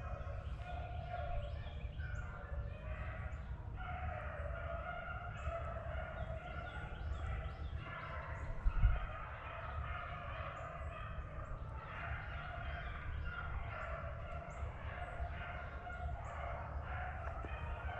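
A pack of beagles baying on a swamp rabbit's track in full chase, several voices overlapping in long drawn-out howls. There is a steady low rumble on the microphone and a single thump about halfway through.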